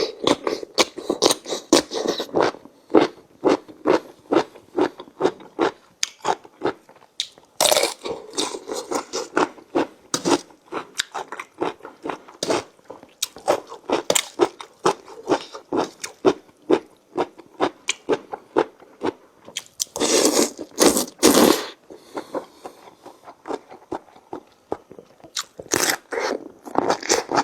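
Close-miked chewing and crunching of khanom jeen rice noodles with raw and pickled vegetables, in quick rhythmic bites about two to three a second. Louder bursts come about eight seconds in, twice around twenty seconds, and near the end.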